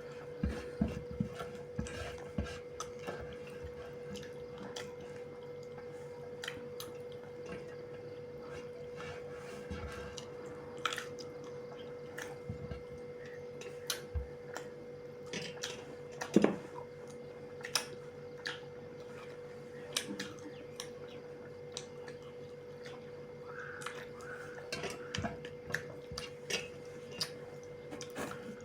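Mealtime eating sounds: scattered light clicks and taps on plates and dishes, with some chewing, over a steady hum.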